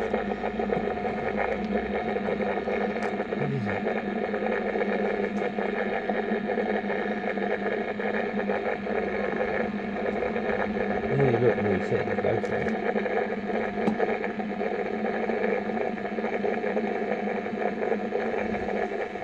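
A steady machine hum with several constant tones, holding an even level throughout. Faint voices come through twice, about three and a half seconds in and again around eleven seconds.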